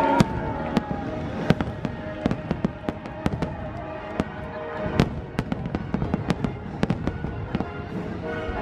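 Aerial fireworks exploding in a rapid, irregular barrage. Many sharp bangs and crackles of varying loudness, the loudest just after the start and about five seconds in.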